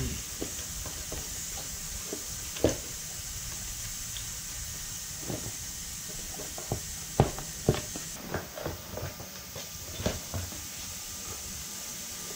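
Scattered clicks and knocks of hand work on a Yamaha three-wheeler's front fender mounts: nuts and bolts being undone and the plastic fender worked free, over a steady hiss.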